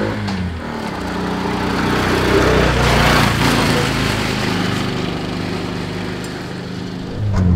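Small single-cylinder engine of an Atul auto-rickshaw running as it drives past, loudest about three seconds in.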